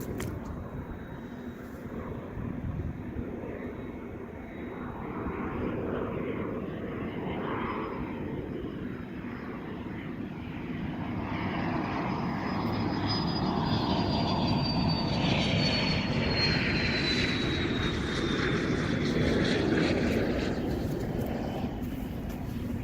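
An airplane flying over: a steady engine rumble that swells through the second half, with a high whine that slowly drops in pitch as it passes.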